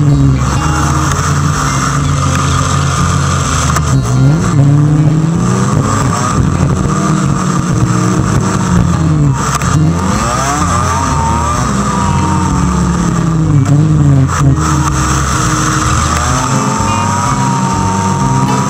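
Motorcycle engine and wind noise while riding. The engine's pitch falls and rises several times as the bike slows and accelerates.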